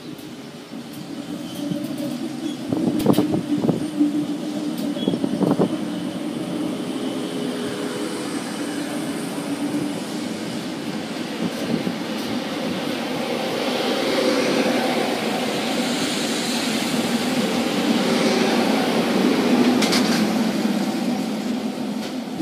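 Renfe electric multiple-unit passenger train moving past and drawing away along the platform. Its wheels knock sharply over rail joints a few times about three to five seconds in, then a rushing wheel-and-running noise swells, with one sharp click near the end, and fades as the train recedes.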